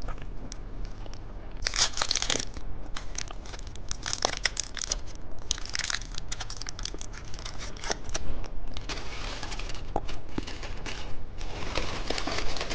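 Plastic candy wrapper crinkling and rustling as it is handled, in an irregular string of sharp crackles and short rustles.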